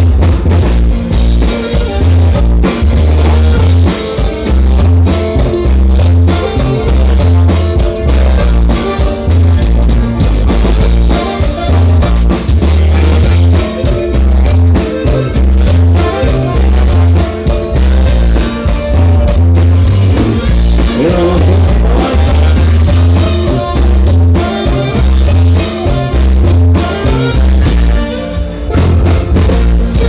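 Regional Mexican dance band music, loud and continuous, with a bass line bouncing between notes on a steady dance beat.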